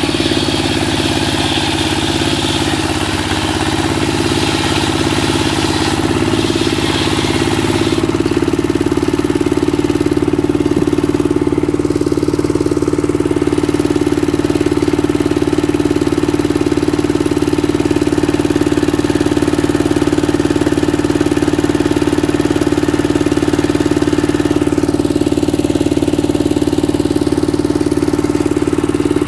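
Dongfeng single-cylinder diesel engine running steadily, driving a circular saw. For about the first eight seconds a higher hiss rides over the engine as the blade cuts through a board.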